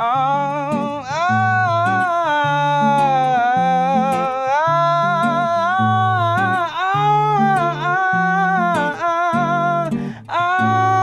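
Acoustic guitar accompanying a singer's wordless vocal melody of long, bending held notes, with a brief break about ten seconds in.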